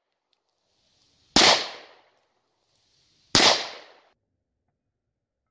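Two shots from a Taurus G2c 9mm pistol, about two seconds apart, each trailing off in a short echo.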